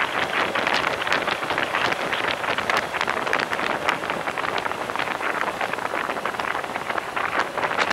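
Wind rushing and buffeting over the microphone of a camera on a motorcycle riding at road speed, a continuous crackly roar with no clear engine note heard through it.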